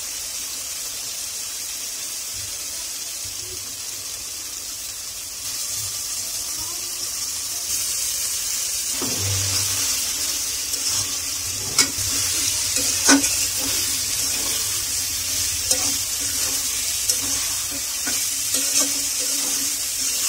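Spice paste sizzling in oil in a metal karai. About nine seconds in there is a low thump as raw pigeon meat goes into the pan, and the sizzle grows louder. After that a metal spatula stirs and scrapes, clicking sharply against the pan now and then.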